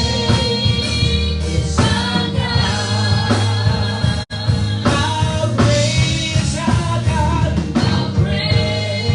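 Gospel praise music: voices singing over a band with a steady bass line. The sound cuts out for an instant about four seconds in.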